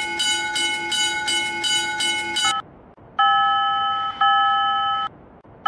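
Japanese railroad crossing alarm bell ringing its quick repeated 'kan-kan' strikes, about three a second, stopping about two and a half seconds in. After a short gap, a steady electronic tone sounds twice, each about a second long.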